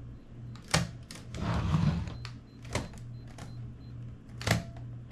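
Sharp mechanical clicks from a Sony CCD-TRV41 camcorder being handled, three of them about two seconds apart, with a rustling handling noise between the first two.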